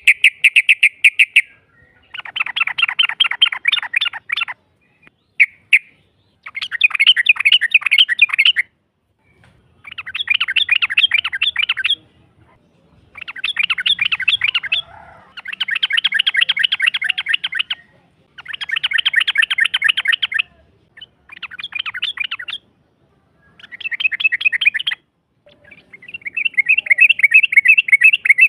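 Yellow-vented bulbul (trucukan) giving its long rapid chatter ('ropel panjang'), the call used as a lure to draw a reply from other trucukan. It comes as repeated bursts of fast notes, each two to three seconds long, with short pauses between, and faint high ticking above.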